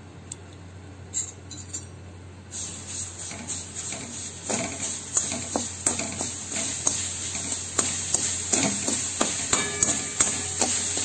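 A spatula stirring sugar and grated ginger in a kadai, scraping and knocking against the pan about once or twice a second. A frying hiss starts about two and a half seconds in as the mixture heats.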